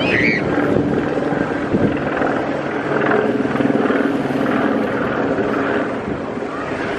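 A steady engine drone with a low rumble, and a brief high chirp right at the start.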